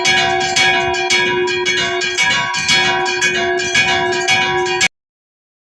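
Chapel church bells rung in a quick repique: many rapid strikes over the bells' steady ringing tones. The ringing cuts off suddenly near the end.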